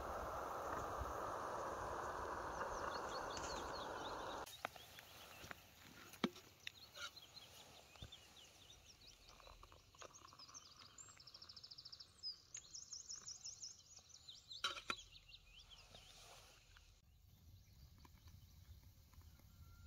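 Canister gas camping stove burner running with a steady hiss, shut off suddenly about four and a half seconds in. Then small birds chirping, with a few sharp clicks and knocks from the stove and mug as the brew is made.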